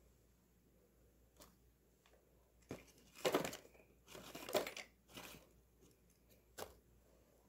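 A small cardboard box gripped in long metal tongs and tipped over a paper-covered bin: three short bursts of paper and cardboard rustling and crinkling in the middle, with a sharp click just before them and another near the end.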